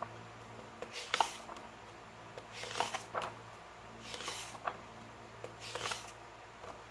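Paper handling: about five brief rustles with soft taps, spaced a second or so apart, as pages of a photo book are turned.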